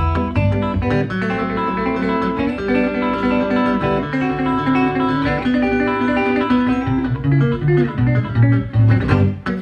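Fingerstyle Travis picking on a D'Angelico archtop electric guitar: thumb-picked bass notes under a quick ragtime melody on the higher strings, the bass lighter for a few seconds in the middle.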